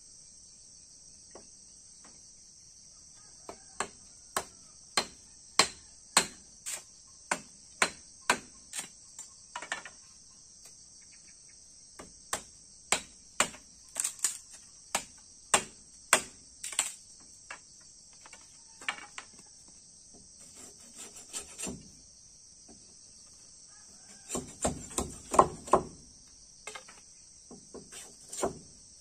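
Bolo knife chopping a piece of wood: sharp, separate blows in runs of about two a second with short pauses and a quicker flurry near the end. Crickets keep up a steady high trill throughout.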